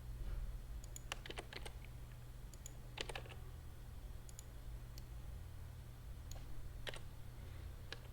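Faint, scattered clicks of a computer mouse and keyboard, a few at a time, over a steady low electrical hum.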